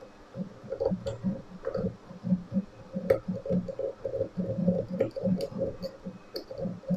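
Small, irregular metal ticks and scrapes of a lock pick working a pin inside a tubular cam lock, with a few sharper clicks about three and five seconds in, as the pick presses pin 5 to set it.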